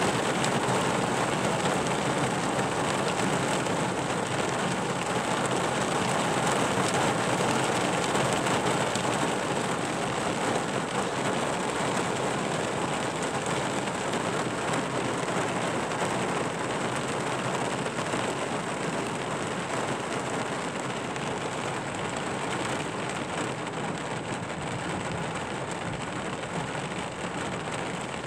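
Steady rain falling, a dense even hiss with fine pattering, easing slightly toward the end.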